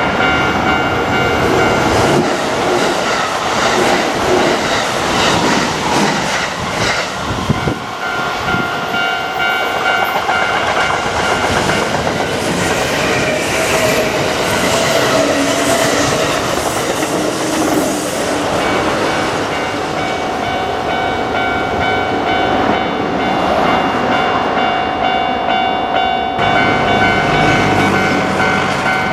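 A Kintetsu Osaka Line train passing over a level crossing, its wheels clicking over the rail joints, with the crossing's warning bell ringing steadily throughout. The train noise is heaviest for the first two-thirds and then eases, while the bell carries on.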